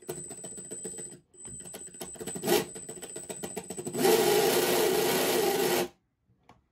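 Small brushless motor driving a 3D-printed plastic spur gearbox, running in a fast stuttering rattle with a steady high whine and briefly stopping about a second in. The motor is too weak for the gearbox, so it stalls and struggles to turn it. Near the end it runs louder and steadier for about two seconds before cutting off.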